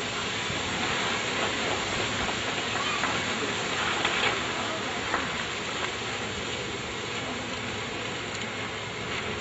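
Steady hiss-like noise, with faint voices in the background.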